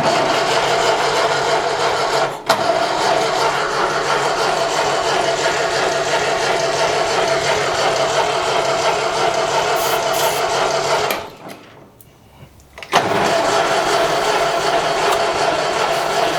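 1955 Ferguson TEA-20 tractor's engine being cranked over by its starter motor in a steady whir, without catching. The cranking stops for about a second and a half near the end, then starts again. The engine not firing is put down to no spark from oxidised points.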